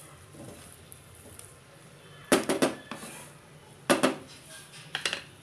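Wooden spatula knocking and scraping against a frying pan while spreading cooked rice level: a quick cluster of sharp knocks a little past two seconds in, another knock about four seconds in, and a couple more near the end.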